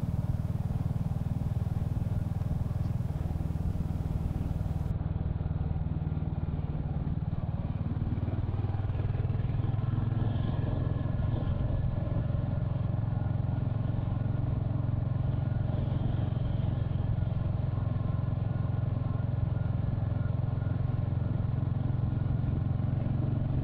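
Royal Enfield Hunter 350's single-cylinder engine running steadily while the motorcycle is ridden along an open road; the engine note shifts a little about eight seconds in.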